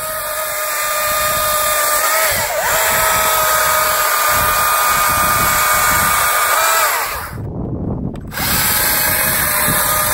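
STIHL MSA 220 C-B battery chainsaw running and cutting through a wooden pole, its electric motor giving a steady whine that dips in pitch for a moment as the chain bites. The sound breaks off for under a second about seven and a half seconds in, then the saw runs and cuts again.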